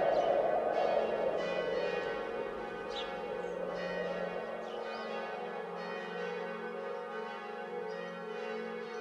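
Bells ringing in a sustained, overlapping drone, while a loud rushing noise fades away over the first two or three seconds.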